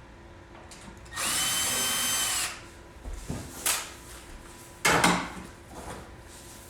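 A cordless drill-driver runs steadily for about a second and a half, taking screws out of the unit's sheet-metal plate. It is followed by a few knocks and clatters of metal parts being handled, the loudest a sharp knock about five seconds in.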